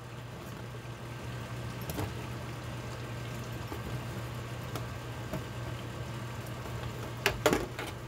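A steady low hum with a faint hiss and scattered small ticks as a large pot of stew simmers on the stove. Two sharp knocks close together come near the end.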